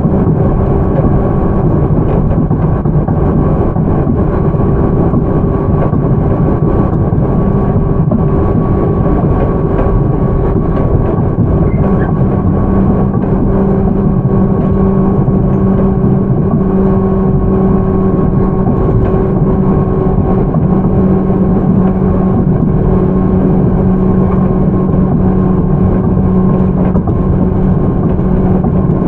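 Running sound heard inside a JR 211 series electric motor car (MoHa 210): rumble of wheels on rail under the hum of its MT61 traction motors and gearing. The hum holds a steady pitch, so the train is at a constant speed.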